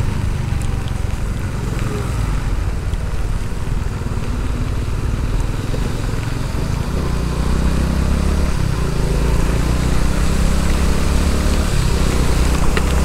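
Honda Pop 110i small single-cylinder motorcycle being ridden, its engine running under a steady rumble of wind noise on the camera microphone. The low rumble grows louder about seven seconds in.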